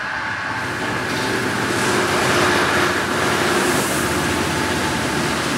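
Magic Wand Nexus touch-free car wash running its high-pressure rinse: water jets spraying onto a car, with a steady machine hum underneath, building over the first two seconds and then holding steady.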